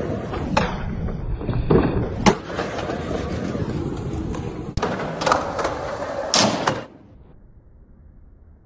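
Skateboard wheels rolling on concrete, with several sharp clacks of the board being popped and landing. The rolling and clacks stop suddenly about seven seconds in, leaving only a faint hum.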